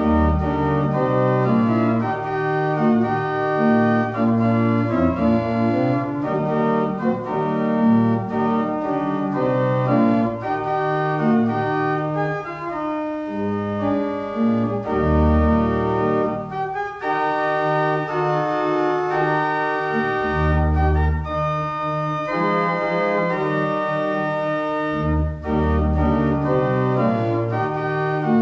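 Organ music played as the postlude closing the service: full sustained chords that change every second or so over long-held low bass notes, starting abruptly.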